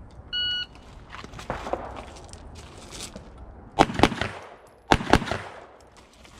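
An electronic shot timer beeps once, about half a second in, and a string of handgun shots follows. The loudest come as two quick pairs, about four and five seconds in.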